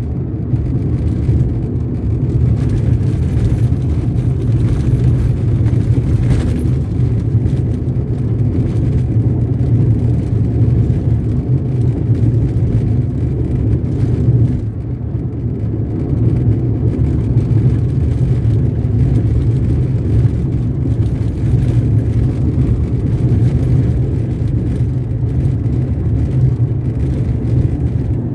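A car driving, heard from inside the cabin: a steady low rumble of engine and tyre noise on rough, patched asphalt. The noise eases off briefly about halfway through.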